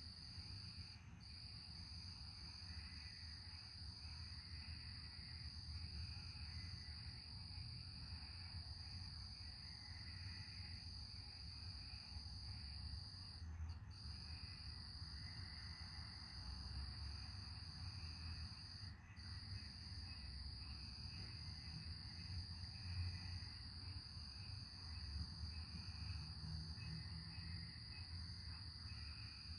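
A chorus of night insects: a steady high-pitched trill, broken by brief pauses three or four times, with a softer pulsing chirp below it. Under it runs a low, uneven rumble.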